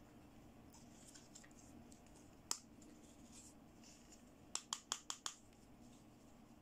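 Fingers handling a pink plastic toy hand mirror: faint rustling, a single sharp plastic click about two and a half seconds in, then a quick run of five clicks about two seconds later.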